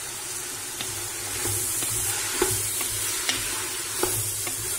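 Green beans and chopped tomatoes sizzling as they sauté in butter and oil in a pressure-cooker pot: a steady frying hiss with a few sharp clicks.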